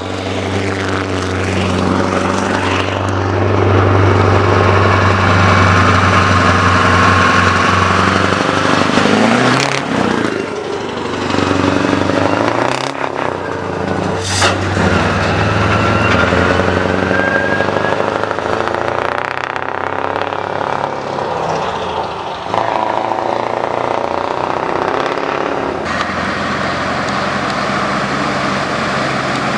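Heavy Scania truck's diesel engine running and moving, its pitch rising and falling as it drives by. A few sharp noises cut through about ten to fifteen seconds in.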